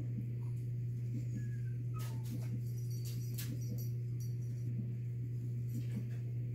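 Steady low hum throughout, with faint scattered ticks and rustles from a metal crochet hook and yarn being worked by hand.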